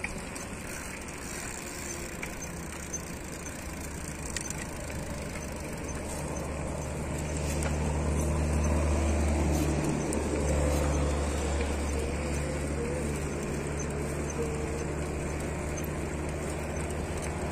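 Wind rushing over a phone microphone on a moving bicycle, with road noise. A deeper low rumble swells about seven seconds in and fades about five seconds later.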